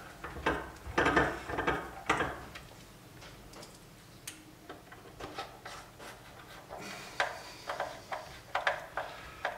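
Small screwdriver turning the screws of a speaker's terminal plate into the wooden cabinet: a few sharp knocks and scrapes at first, soft rubbing and scraping, then a run of small clicks near the end.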